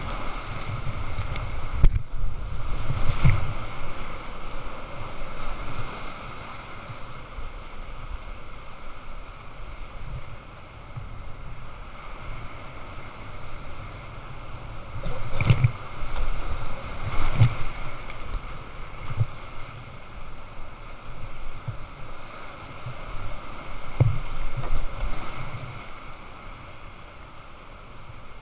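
Whitewater rapids rushing around a kayak, with several louder splashes as waves break over the boat and wind noise on the microphone.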